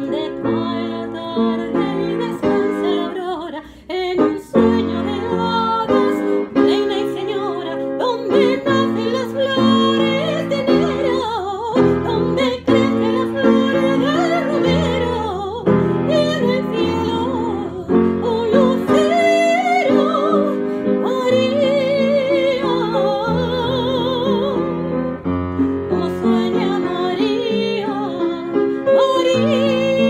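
Piano playing chords under an operatic-style singing voice with a wide vibrato.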